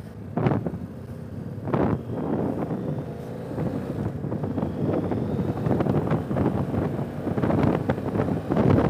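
BMW F800GS parallel-twin engine pulling away and accelerating, with wind rushing over the onboard camera's microphone, heard more and more as speed rises. Two short loud bursts come in the first two seconds.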